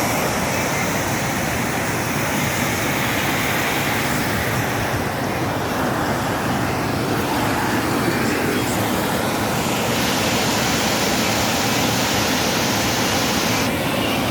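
Waterfall: a steady rush of falling water, unbroken throughout.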